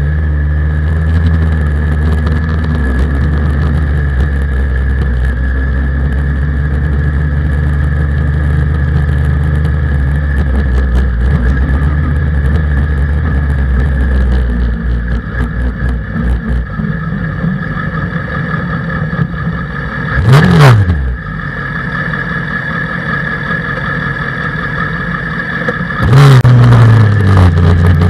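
Suzuki Hayabusa 1300 inline-four engine in a race car running steadily at low revs. It gives a short blip of the throttle about twenty seconds in, then runs louder and at higher revs near the end.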